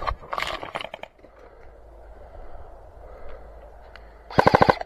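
An airsoft gun firing a short full-auto burst near the end: a rapid string of sharp clicks, about twenty a second, lasting half a second.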